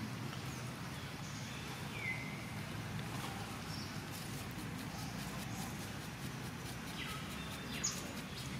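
Steady outdoor forest background with a few short high chirps, one about two seconds in and a small cluster near the end.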